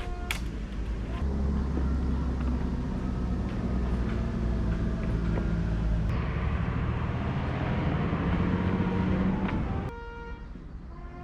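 A motor vehicle running: a steady low engine and road rumble with a shifting low drone, cutting off suddenly near the end, where background music with clear sustained notes takes over.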